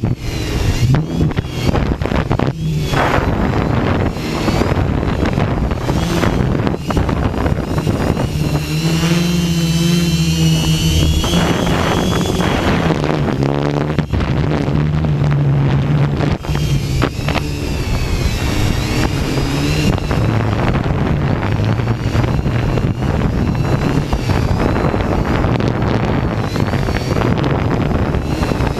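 Hexacopter's electric motors and propellers whining, their pitch shifting up and down as the motors speed up and slow down, most clearly about nine to twelve seconds in. Heavy wind buffets the microphone throughout.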